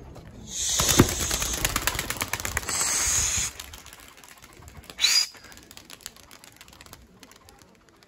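A flock of young racing pigeons taking off together: a burst of dense wing flapping and clapping that lasts about three seconds, then cuts off.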